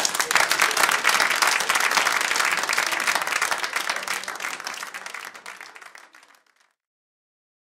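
Studio audience applauding, thinning out and dying away about six and a half seconds in.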